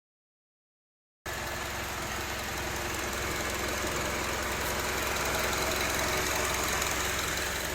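2002 Honda CR-V's 2.4-litre inline-four engine idling steadily, cutting in suddenly about a second in; this is the newly swapped replacement engine running.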